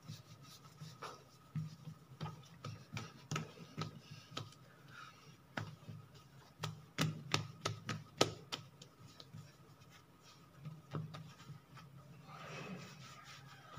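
Hands kneading and shaping bread dough on a floured stone worktop: soft rubbing with a scatter of short taps and pats, the sharpest ones in the middle.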